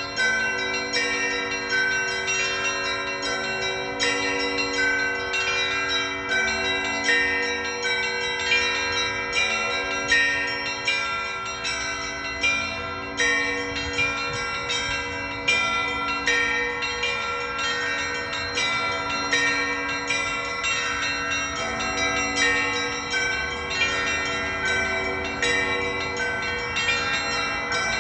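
Russian Orthodox church bells ringing in a continuous rhythmic peal: small bells struck in quick repeated patterns over the steady hum of larger bells.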